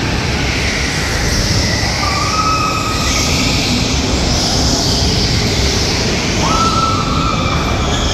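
Go-karts running around an indoor track out of sight: a steady rumble of karts with two short rising motor whines, one about two seconds in and one near the end.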